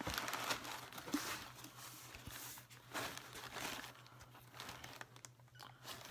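Packing wrap crinkling and tearing in irregular bursts as an energy drink can is unwrapped by hand.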